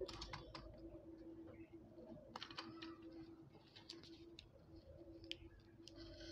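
Faint clicks and taps of hands handling the opened plastic torch housing and its wires, over a faint steady hum.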